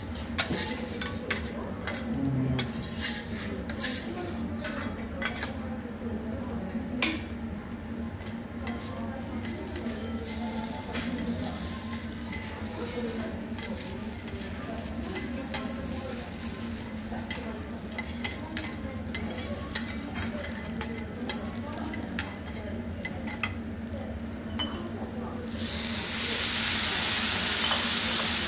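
Food sizzling on a steel teppanyaki griddle, with metal spatulas repeatedly clicking and scraping on the hot plate. About three seconds before the end, a much louder, steady hiss starts suddenly, as something new hits the hot griddle.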